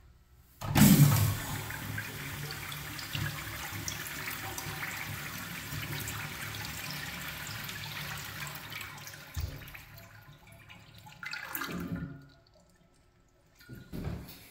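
American Standard Trimbrook urinal flushing: a loud burst as the flush valve opens about a second in, then water rushing through the bowl for about eight seconds before fading, with a short last surge about eleven seconds in.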